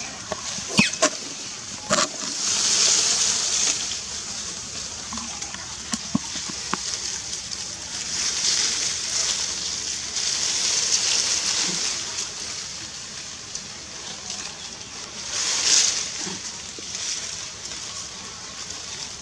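Outdoor ambience: a high hiss that swells and fades several times, with a few sharp clicks and crackles near the start.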